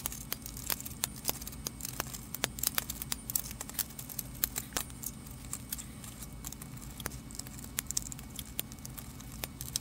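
Small irregular clicks and ticks of a screwdriver and fingers working the tiny screws out of a Commodore 64 keyboard assembly, several a second, over a low steady hum.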